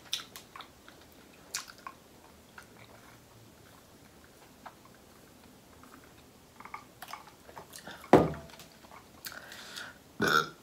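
Close-miked eating sounds: scattered wet chewing and lip smacks, then sipping grape soda through a straw, with one sudden loud thud about eight seconds in.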